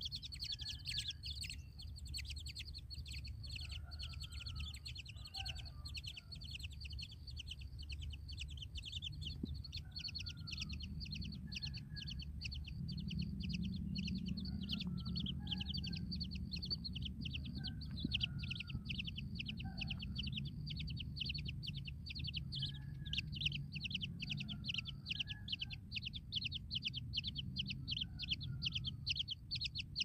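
Naked nestlings chirping in a rapid, high-pitched run, many chirps a second almost without pause, with softer lower calls now and then. A steady low rumble lies underneath.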